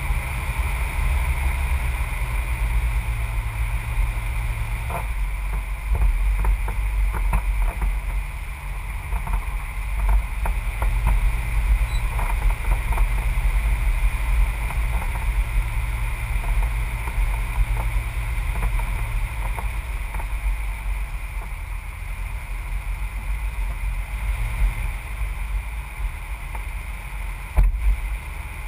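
Muffled rumble of a vehicle driving, heard from a camera mounted on it, with steady wind noise. Many small clicks and crackles come in through the middle, as it rolls onto gravel, and one sharp knock sounds near the end.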